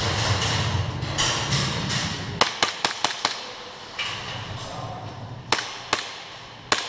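Rustling movement noise, then a quick string of about six sharp airsoft shots a little over two seconds in, followed by three more single shots spaced out toward the end.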